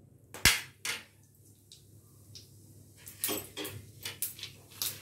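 Mustard seeds going into hot ghee in a small steel tadka pan: a sharp knock of the spoon on the pan about half a second in, then from about three seconds the seeds start spluttering, a run of short crackling pops as they burst in the hot fat.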